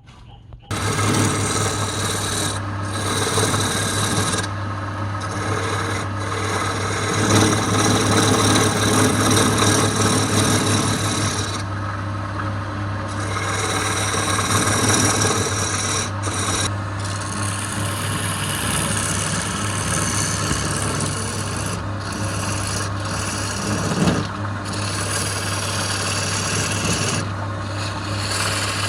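A wood lathe running with a turning tool cutting the spinning wood. It gives a continuous scraping, rasping noise over a steady motor hum, starting abruptly just under a second in.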